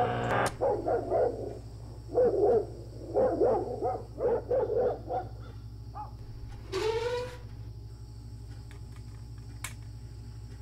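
Music cuts off just after the start, then a dog barks repeatedly in short uneven volleys, followed by one rising cry about seven seconds in. A low steady hum runs underneath.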